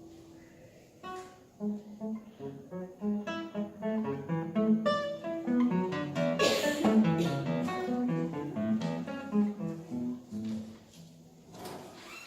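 Plucked acoustic guitar music. A held note dies away, then from about a second in a run of quick plucked notes plays, with a brighter, sharper chord about halfway through.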